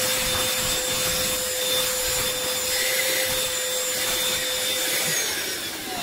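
Ferrex 20 V cordless handheld vacuum cleaner running at full suction with a steady whine over a dirty car footwell mat. About five seconds in, the whine stops holding steady and the motor starts to wind down.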